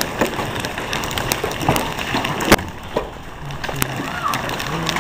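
Storm wind rushing over the microphone, with scattered sharp knocks and clicks; the loudest knock comes about two and a half seconds in.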